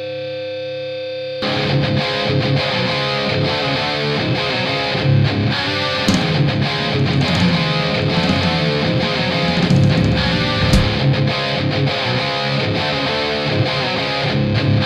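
Hard/stoner rock: a held, swelling guitar chord, then about a second and a half in the full band comes in with heavily distorted electric guitars over a steady driving rhythm.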